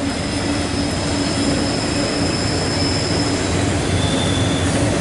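Freight train of autorack cars rolling past: a steady rumble of wheels on rail with thin high-pitched wheel squeal, one squeal held for about three seconds and a shorter one near the end.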